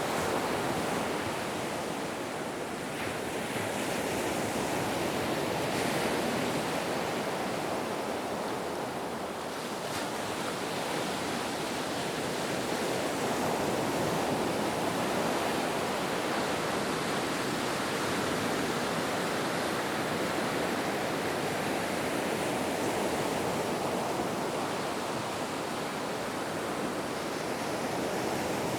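Ocean surf washing onto a beach: a continuous rushing of waves that swells and eases gently every few seconds.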